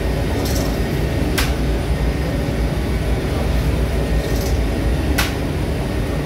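Bread-production machinery running: a steady low rumble from the dough-sheeting conveyor and rotating oven, with two sharp knocks, one about a second and a half in and one about five seconds in.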